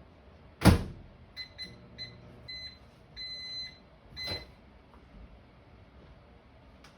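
Microwave oven door shut with a knock, then about six keypad beeps as the time is set and the oven started, two of them held longer than the rest.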